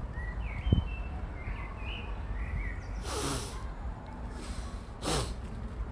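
Outdoor ambience under flowering trees: a few short bird chirps in the first half over a steady low rumble of wind on a phone microphone, a brief handling bump about a second in, and two short breathy whooshes about three and five seconds in.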